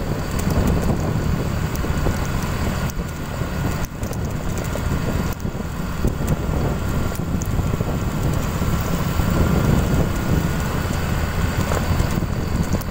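Motorcycle running at steady riding speed, with wind rumbling on the microphone.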